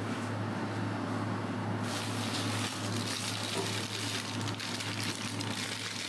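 Water running and splashing, starting about two seconds in, over a steady low hum.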